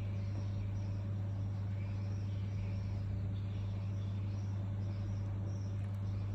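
A steady low hum at an even level, like a motor or electrical hum.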